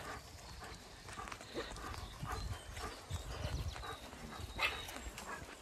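Quiet footsteps of sheep and a walker on a wet, grassy track, with soft irregular thuds, scuffs and small clicks and a low rumble underneath.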